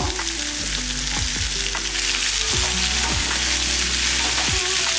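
Coarsely cut onions sizzling in hot oil in a pan with cumin and curry leaves, while a spoon stirs them in repeated short strokes.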